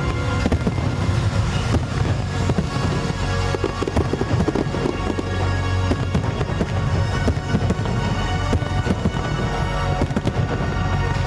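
Fireworks crackling in many quick pops and small bangs, over music with a steady low bass.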